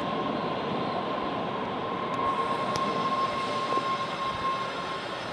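Subway train running past the platform as it leaves: a steady rumble with a high, steady squeal that stops near the end.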